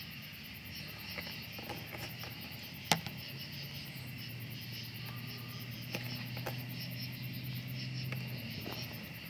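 Crickets chirping steadily in a fast, even pulse. A sharp click comes about three seconds in, and a low hum runs through the middle.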